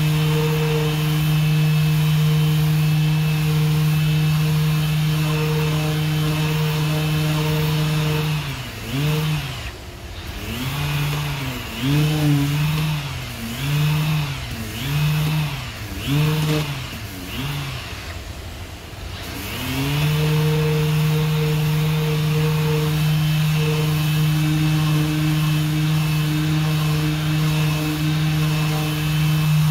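Random-orbital sander with dust extraction running steadily while sanding body filler on a car's wheel arch. Through the middle its pitch dips and recovers about six times, then it runs steady again and stops at the very end.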